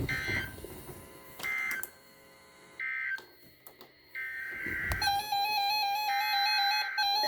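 Emergency Alert System digital data bursts, the screechy two-tone SAME signal: three short bursts about a second apart, the end-of-message code closing the first warning. About four seconds in, a longer data burst starts and runs on into a sequence of stepping electronic tones.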